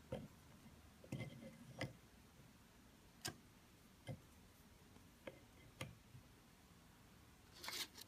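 Faint wooden toy truck pieces knocking and clicking together as they are fitted onto wooden pegs: about seven light taps spread unevenly, with a short rubbing noise near the end.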